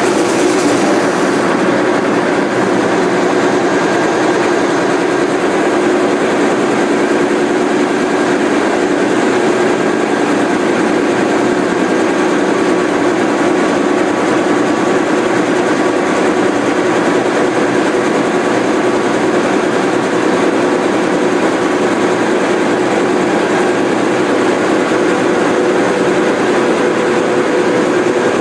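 Gato-class submarine diesel engine running steadily, a loud, even drone that does not change.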